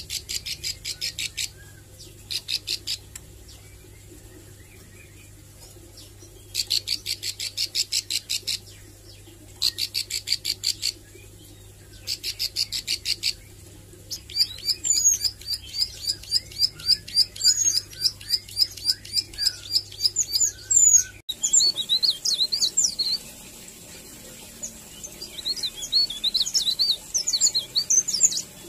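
Caged ciblek sawah, a small prinia, singing: several bursts of fast, evenly repeated high notes, about ten a second, then a run of quicker, varied twittering. A little past two-thirds of the way through, the sound cuts to other scattered high chirps.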